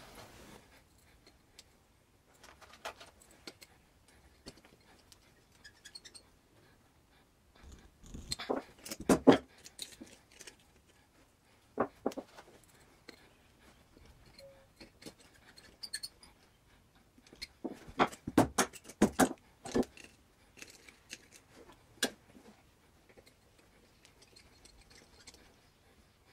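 Scattered light clicks and metallic knocks of a hand tool working in the bolt holes of a cast air-compressor crankcase as thread-repair inserts are screwed in, with two louder bursts of clattering about a third and two thirds of the way through.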